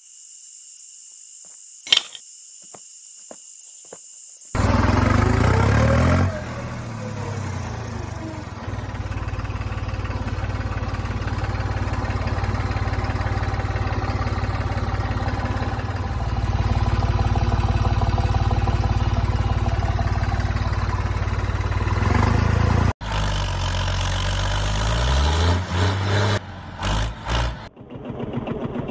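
Small electric motors of miniature DIY model tractors running through their gearing. The run starts a few seconds in as a loud steady hum that rises in pitch at times, cuts off abruptly, then starts again with a rising whine and ends in a fast rhythmic pulsing.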